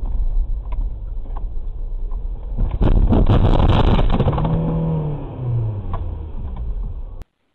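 Dashcam recording of a car crash: steady engine and road rumble, then about three seconds in a loud crash with crackling and scraping as the car goes off the road into roadside brush and stops. A lower tone falls in pitch afterward, and the sound cuts off abruptly near the end.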